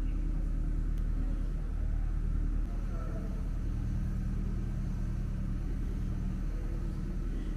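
Steady low mechanical rumble, easing slightly about two and a half seconds in.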